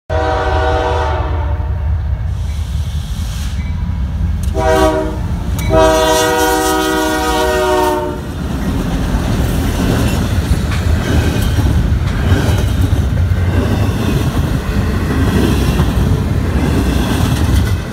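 CSX diesel freight locomotive sounding its multi-tone horn three times, a blast of a second or so, a short one, then a longer two-second one, over the low rumble of its engine as it approaches and passes. After that the double-stack intermodal cars rumble and clatter past on the rails.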